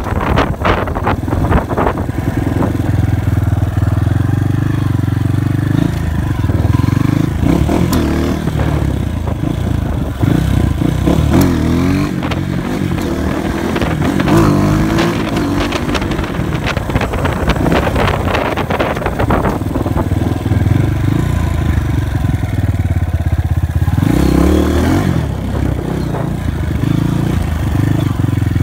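Dirt bike engine running while riding, its revs rising and falling several times as the throttle is worked.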